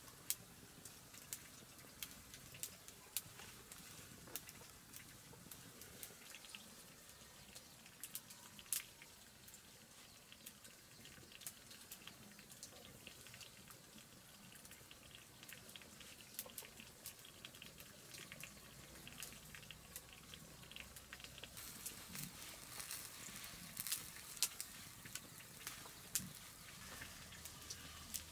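Wild vegetable greens being picked by hand: faint, irregular snaps of tender stems breaking and leaves rustling, coming thicker and louder near the end.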